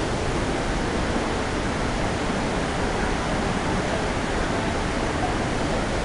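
White water of a mountain river rushing over boulders and down a small cascade: a steady, unbroken rush.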